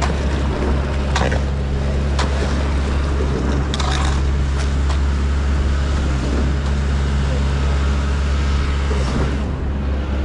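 A large engine running steadily at constant speed, with a few short knocks and scrapes over it around the first few seconds.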